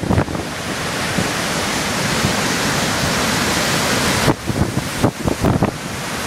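Force-9 storm waves breaking on a rocky shore: a loud, steady wash of churning foam and water spilling off the rocks. In the second half, wind gusts buffet the microphone.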